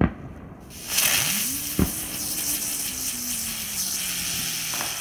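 A firework pops, then about a second later a bright aerial firework flare burns with a loud, steady hiss, under a low tone that rises and then slowly sinks in pitch. A single crack sounds about two seconds in.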